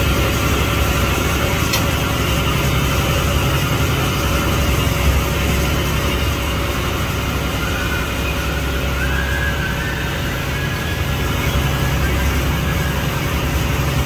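Fishing boat's engine running steadily: an even low hum with a constant hiss of noise over it, unchanging throughout.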